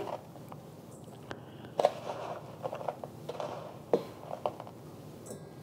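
Brown sugar being spooned from its container into a stainless steel mixing bowl: faint scrapes and a few light taps of the spoon.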